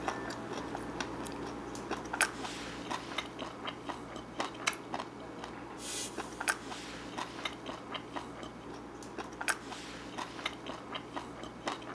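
A person chewing burdock gimbap: irregular crisp clicks and crunches, a few a second, as the braised burdock root is bitten through.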